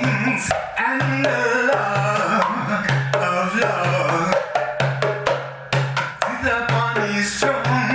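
Music with hand-drum percussion keeping a steady beat under a pitched melodic line, with no clear lyrics.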